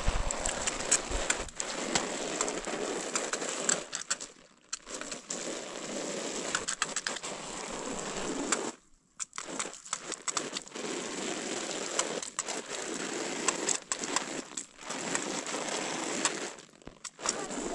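Scraping and rustling of hand tools at work on a woven sheet and stony ground, in long stretches with scattered clicks, broken by a few short pauses.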